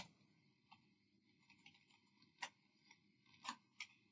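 Faint computer keyboard keystrokes: a handful of scattered light clicks, irregularly spaced, against near silence.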